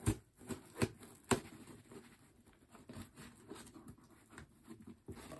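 Scissors cutting through packing tape on a cardboard shipping box: three sharp snaps in the first second and a half, then softer scratching and rustling of the blade along the tape and cardboard.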